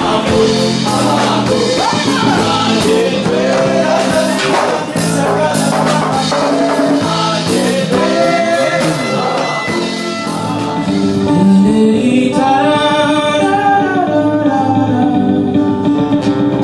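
Festival performance music with singing: voices over instruments, with sharp percussion strokes in the first half and held sung notes in several voices in the second half.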